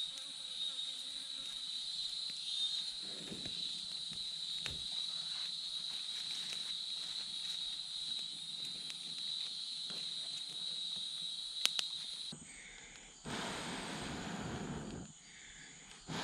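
A steady, high-pitched chorus of jungle insects buzzing. It cuts off suddenly about twelve seconds in and gives way to a broad rushing noise.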